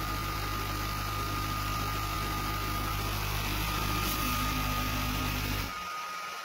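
Sculpfun S30 Ultra diode laser engraver running while it cuts plywood: a steady hum and hiss with a thin high whine. The low hum drops away near the end.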